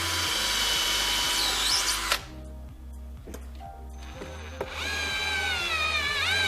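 Power drill running in two bursts: a spin of about two seconds that stops suddenly with a click, then after a pause a second run whose pitch slowly sags, dips and climbs again near the end. Background music with a steady beat plays underneath.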